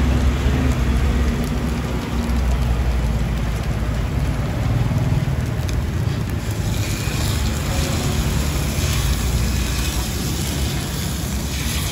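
Batter and oil frying in a hot dimpled cake pan over a steady low rumble of street traffic; from about six and a half seconds in the sizzle grows brighter and louder as batter is ladled into the hot cups.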